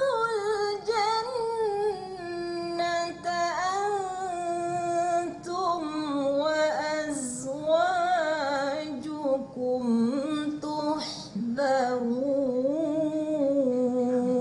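A woman's solo Quranic recitation in tarannum style: long melodic phrases with wavering ornaments and a few short breaths between them, ending on a long held note.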